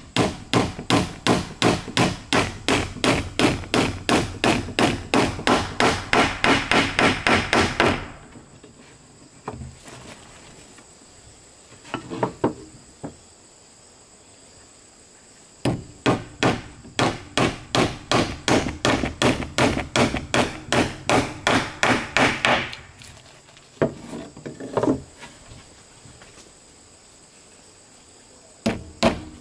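Hammer blows on wood, fast and evenly spaced at about four a second, in two long runs several seconds each, with a pause between them broken by a few single knocks.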